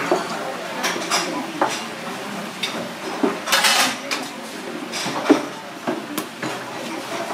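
Metal spatula clinking and knocking against a steel flour tray and a steel egg pot while a pork cutlet is breaded for tonkatsu: a run of separate sharp clinks, the loudest about five seconds in, with a short scraping rush a little past halfway.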